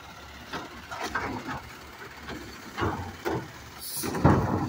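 Automated side-loader garbage truck's arm dumping a wheeled trash cart into the hopper: a run of knocks and clatters as the cart is shaken and trash falls in, with the loudest bang near the end as the cart comes down, over the low rumble of the truck's idling diesel.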